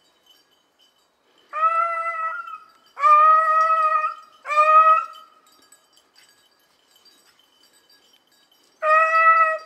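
A beagle gives four drawn-out bays: three in quick succession, then one more near the end. It is the hound's trailing voice as it runs the hare's track in to the downed snowshoe hare.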